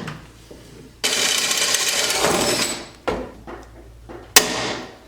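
Steel tool box being worked on while new drawer slides are pop-riveted in: a sharp metallic snap that rings in the box's steel, once about three seconds in and louder again about four seconds in, with a steady drill-like whir lasting about two seconds between the start and the snaps.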